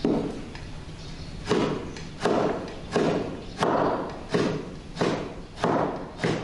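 Kitchen cleaver chopping chunks of fatty pork on a wooden cutting board: about nine chops, evenly spaced, each a dull knock on the wood.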